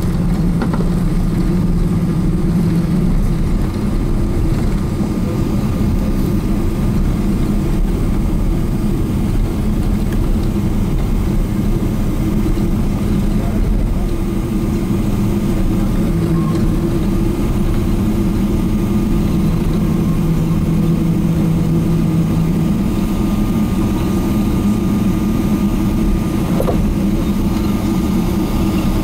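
Steady engine and airflow drone heard inside the cabin of a Boeing 777-300ER with GE90 engines: a low rumble carrying a few constant hums, with no sudden changes.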